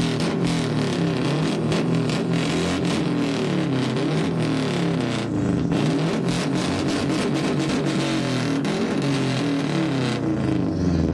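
A Subaru WRX's turbocharged flat-four, fitted with a Gymkhana cat-back exhaust, is revved again and again from the tailpipe. Its pitch climbs and drops in quick, repeated blips, with a crackle riding on top.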